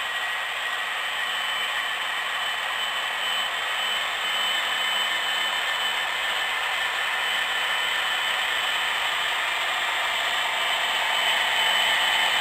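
HO scale model autorack train rolling past on its track, a steady mechanical rolling and whirring noise of the wheels and running gear. It grows a little louder near the end as a second model train approaches on the next track.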